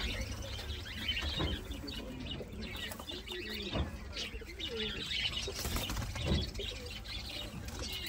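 A crowd of caged rose-ringed parakeets calling, with many short chirps and squawks overlapping throughout.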